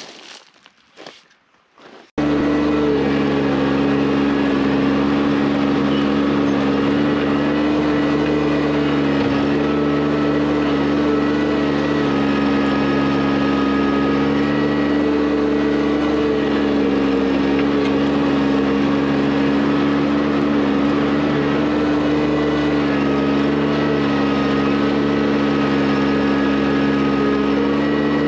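John Deere compact tractor engine running at a steady speed while it works a pile of gravel. It comes in suddenly about two seconds in, after a few faint scrapes.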